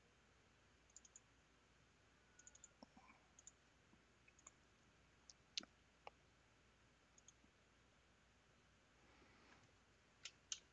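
Faint, irregular clicks of a computer mouse over near silence, single and in small clusters, with the sharpest a little past the middle.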